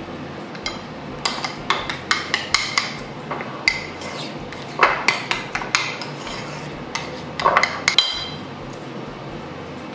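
Metal spoon clinking against a ceramic bowl while stirring a thick mayonnaise-based sauce: quick, irregular clinks that stop about eight seconds in.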